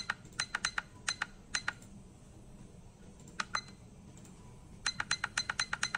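Push-button keys on a weather station's display console clicking as they are pressed over and over, scrolling through the date setting. The clicks come singly and in quick runs of about three or four a second, with a dense run near the end.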